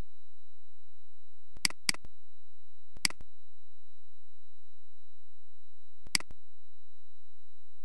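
Computer mouse clicks: a quick double click a little under two seconds in, then single clicks about three and six seconds in. A steady high-pitched tone runs under them.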